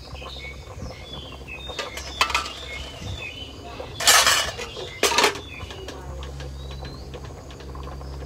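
Aluminium cookware clattering: a metal ladle, bowl and pot lids knocking and scraping together, with three louder clanks about two, four and five seconds in.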